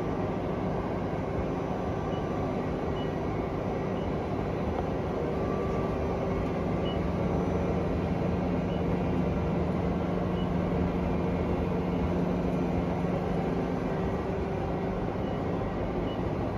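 Mori Seiki ZT 2500Y CNC lathe running: a steady machine hum with a few held motor tones, the lowest growing louder through the middle, and faint light ticks now and then.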